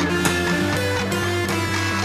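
Live rock band playing an instrumental passage with no singing: strummed guitars over bass and drums.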